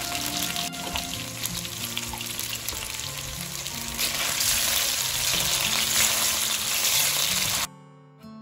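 Chicken strips sizzling in hot oil in a wok, louder from about halfway as they are turned with a spatula. The sizzle cuts off suddenly near the end, leaving soft guitar music.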